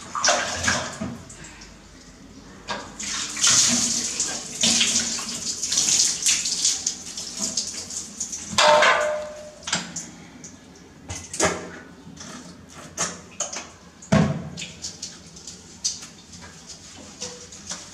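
Water splashing and running in uneven gushes while a baby monkey is washed by hand, with a few sharp knocks in between.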